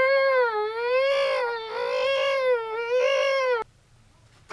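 A person's voice giving one long, high-pitched, crying wail, wavering gently up and down in pitch, then cut off suddenly after about three and a half seconds.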